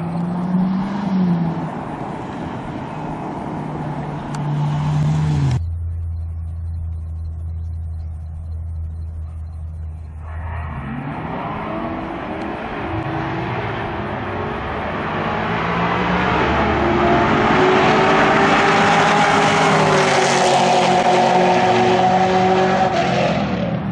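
Drag-racing street cars at the starting line: engines idling with a steady low hum, then about ten seconds in they launch and accelerate down the strip. The engine note rises through the gears and is loudest near the end before cutting off.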